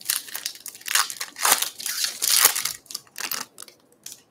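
Trading-card pack wrapper being torn open and crinkled: a run of rustling tears and crackles that stops shortly before the end.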